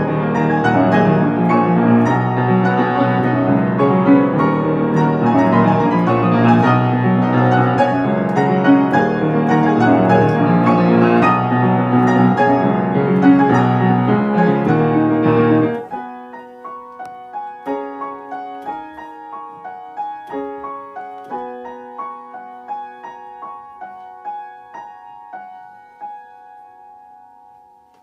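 Piano duet playing full, dense chords for about sixteen seconds, then breaking off suddenly into a quiet, sparse line of single notes. The notes slow and fade away near the end: the closing bars of the piece.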